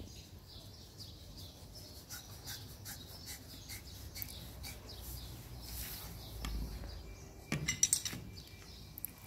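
Light clicks and clinks of a brass shower mixer valve with plastic pipe fittings being handled and turned, with a short cluster of louder knocks near the end as it is set down on a concrete block. Birds chirp in the background.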